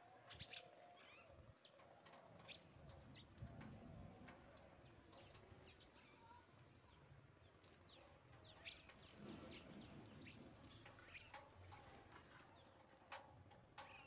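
Faint house sparrow chirps: short, high calls and quick falling notes scattered throughout, over a faint low background rumble.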